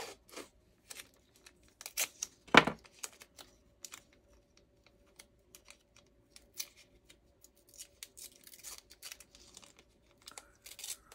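Washi tape being pulled off its roll and torn, and paper stickers being handled and peeled from their sheet: scattered small crackles, ticks and tears, the loudest a sharp one about two and a half seconds in.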